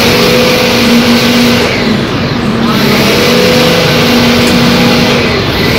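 Air-conditioner outdoor unit's fan motor running on test after a bearing replacement: a loud, steady rush of air through the grille with a hum underneath.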